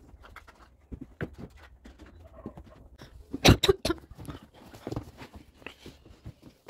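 Footsteps and handling noises as an upholstered sofa is tipped and moved on a wooden floor: scattered knocks and bumps, with a cluster of several loud knocks about three and a half seconds in.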